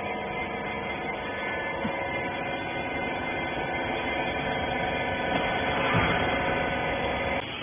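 Steady electric machine hum, likely the wiper rag baler's motor running. It holds several constant tones and cuts off abruptly near the end.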